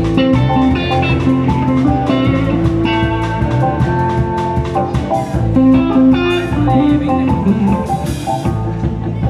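A live band playing an instrumental passage: electric guitars, bass guitar, keyboard and drum kit, with steady drum hits and a stretch of cymbal wash for about two seconds near the end.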